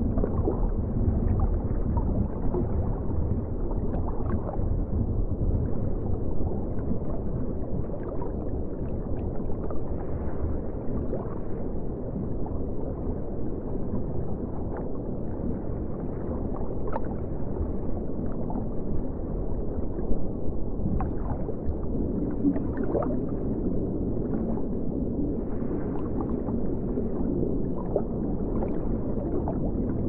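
Steady low rumble and gurgle of water circulating in a large aquarium tank, with faint brief higher sounds scattered over it.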